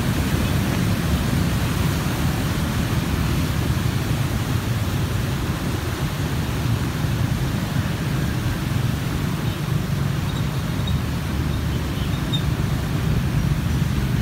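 Steady traffic noise of many motorbikes riding through a flooded street, with a constant low rumble.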